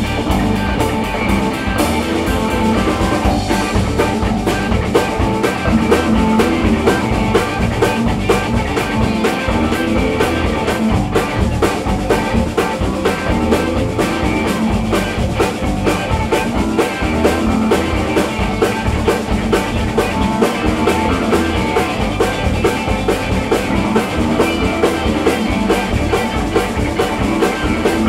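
Live alt-country rock band playing an instrumental passage: electric and acoustic guitars over bass guitar and a drum kit keeping a steady, driving beat.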